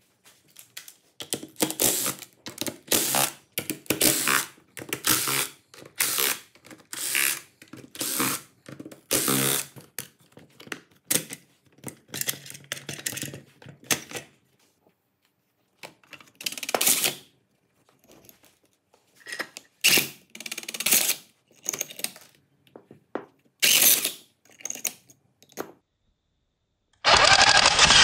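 MAX RB-395 rebar tying tool running through short tying cycles, its motor and twisting mechanism whirring in half-second bursts about once a second, then more sparsely. A louder, denser stretch of noise starts about a second before the end.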